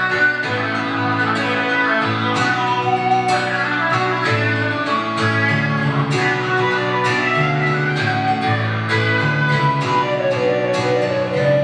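Guitar playing a flowing run of plucked notes over sustained lower notes, in an instrumental passage of a live song.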